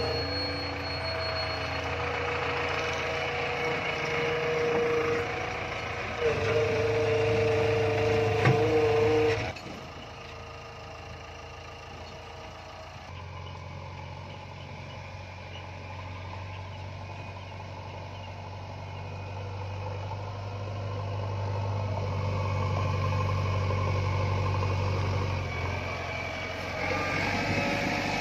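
JCB backhoe loader's diesel engine running just after being started, with a steady whine over it for the first nine seconds or so, louder from about six seconds in. After a sudden drop the engine runs on more quietly with a steady deep note.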